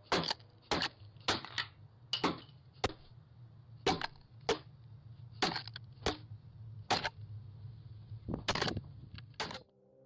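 A doorbell camera being struck over and over with a long object, heard through the camera's own microphone: about fourteen sharp hits at an uneven pace of roughly one or two a second, over a low steady hum.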